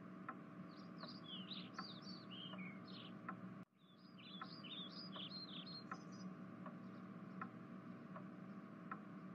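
Faint room ambience: birds twitter in two quick runs of falling chirps, over soft regular ticking and a low steady hum. The sound drops out for a moment just under four seconds in.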